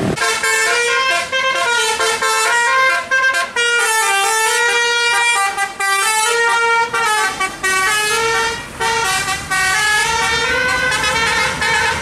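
A bus's telolet musical air horn plays a fast melody, its notes stepping up and down several times a second. It starts suddenly and runs loud, with only brief gaps between phrases.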